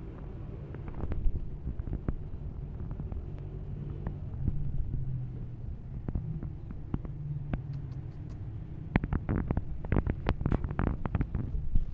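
A cat purring, a steady low throb, with a run of sharp clicks and knocks near the end.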